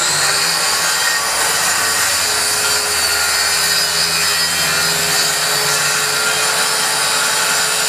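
Circular saw running steadily at full speed while cutting through a plywood sheet, its blade in the wood the whole way.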